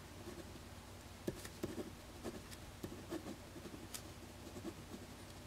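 Pen writing in cursive on a sheet of paper: faint, irregular scratching strokes.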